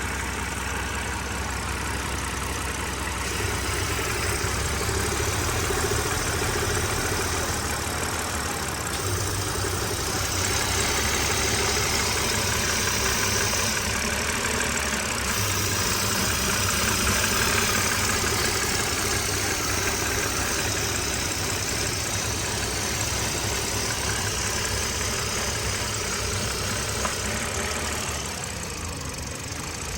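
BMW N52 straight-six idling, with a steady hiss from the intake manifold area while the oil filler cap is open; the owner asks whether it is a blown PCV valve. The hiss grows louder about a third of the way in and drops away near the end.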